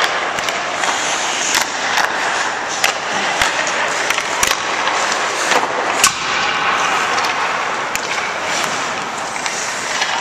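Ice hockey skates scraping and carving on rink ice, a steady hiss, broken by many sharp clacks of sticks hitting pucks and pucks striking goalie pads, with the sharpest crack about six seconds in.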